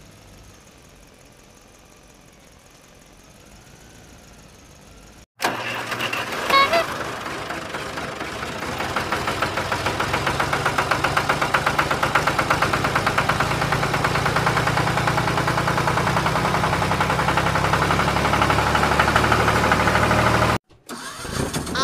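Vehicle engine sound running with a rapid, even chugging. It starts abruptly about five seconds in, grows a little louder a few seconds later and cuts off shortly before the end. Before it comes a few seconds of faint background.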